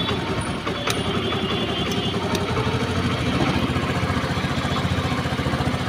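Honda Aviator scooter's single-cylinder four-stroke engine idling with a rapid, even pulse just after starting, while its carburettor idle is being tuned; the running gets a little stronger about halfway through. A few light clicks in the first couple of seconds.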